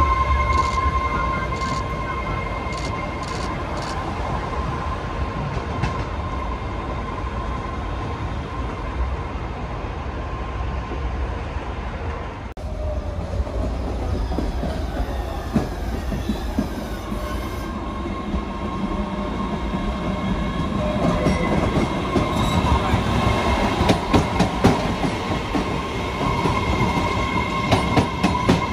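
MBTA Red Line subway train running on elevated track, with a steady whine over the rumble of its wheels. Then a train pulls into an elevated station, its wheels clicking over rail joints and squealing, growing louder toward the end.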